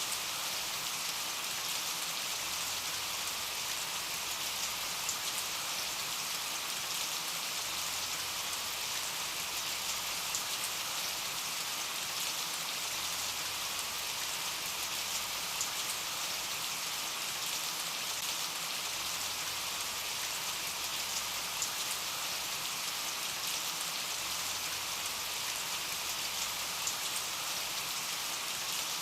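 Steady rain falling and pattering on surfaces, with scattered louder drop ticks.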